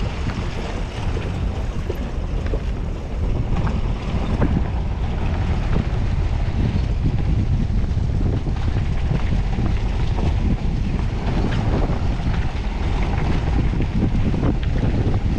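Wind buffeting the microphone of a camera on the move: a steady low rumble with small scattered knocks and rattles.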